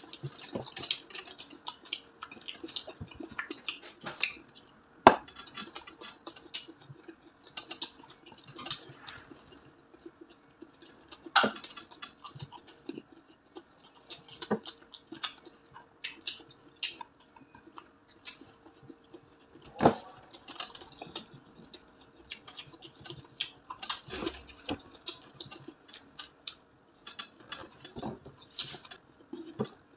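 Close-up eating sounds: crunching and chewing of crispy fried pork belly (lechon kawali) eaten by hand, as a run of crackly clicks with a few sharper, louder cracks.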